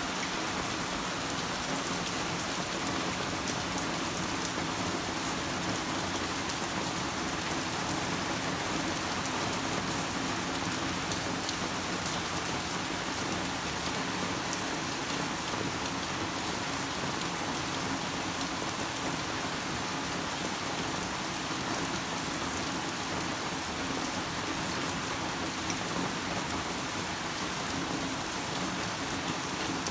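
Heavy typhoon rain falling steadily, a dense, unbroken hiss of rain that keeps an even level throughout.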